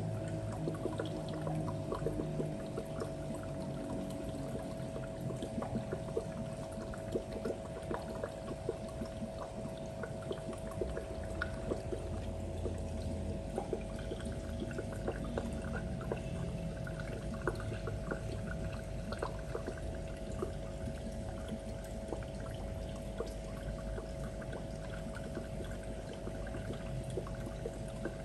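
Aquarium water trickling and pouring, likely from the filter outflow, with many small irregular ticks of bubbles or drips and a steady hum underneath.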